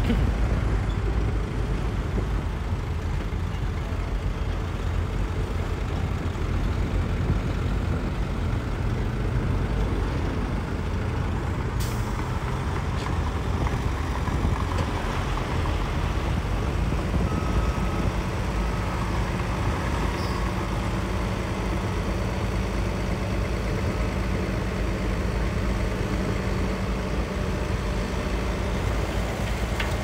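Heavy diesel earthmoving machinery running steadily under load, its low engine noise continuous throughout. A few faint short beeps come a little past halfway.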